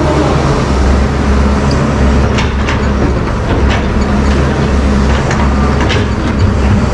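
Doosan wheeled excavator's diesel engine running steadily under digging load as the bucket works into rocky soil, with about five sharp clinks and knocks of stones and rubble against the bucket.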